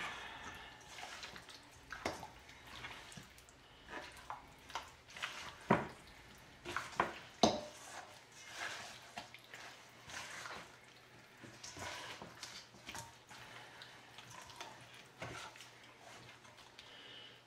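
Gloved hands squishing and turning chicken drumsticks in a thick marinade in a stainless steel bowl: wet squelching and dripping, with irregular knocks of the pieces against the metal bowl, a few louder ones about six to seven and a half seconds in.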